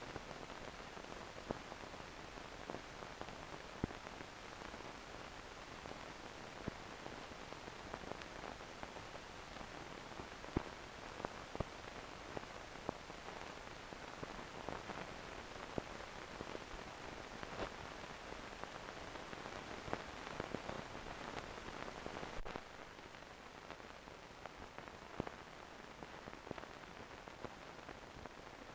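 Faint steady hiss peppered with small clicks and crackles: the surface noise of an old 1960s optical film soundtrack playing with nothing recorded on it. The hiss steps down slightly a little past two-thirds of the way through.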